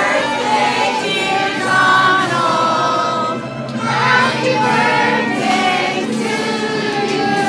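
A birthday song: a group of voices singing held, gliding notes over backing music.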